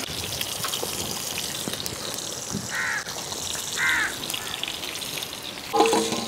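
Crab curry simmering and bubbling in a clay pot over a wood fire, with a crow cawing twice, about three and four seconds in.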